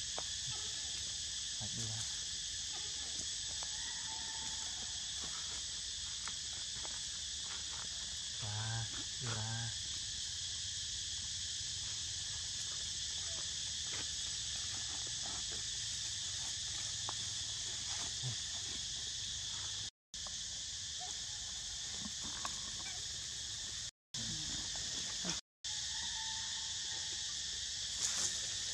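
Steady, high-pitched chorus of forest insects. A short wavering call comes about nine seconds in, and the sound cuts out for a moment three times near the end.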